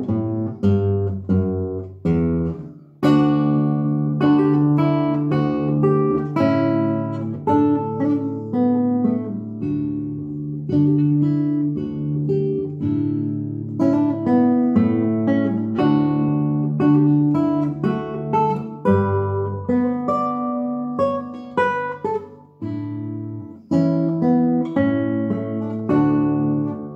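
Solo classical nylon-string guitar playing a minuet: plucked melody notes ringing over held bass notes, with a brief break about three seconds in.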